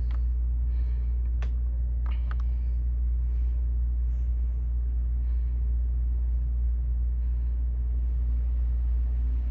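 Steady low rumble of a central air conditioner that has just been switched on and is running, with a few light clicks in the first couple of seconds.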